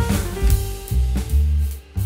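Background music with a drum beat and a low bass line.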